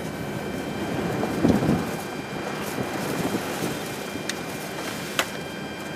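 Storm wind and rain rushing steadily, with a strong gust about a second and a half in and two sharp ticks near the end.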